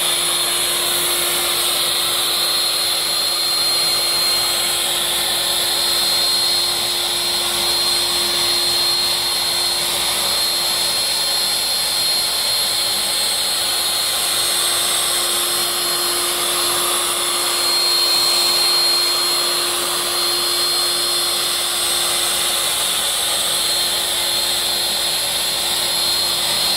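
CNC router spindle running with a steady high whine while its bit mills a moulding profile into an MDF board, with dust extraction drawing through the hose on the dust shoe. The level swells slightly a few times but never stops.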